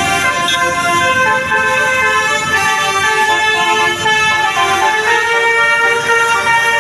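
Basuri 'telolet' multi-tone horn on a bus playing a tune: loud, continuous horn notes that step from one pitch to the next every half second or so.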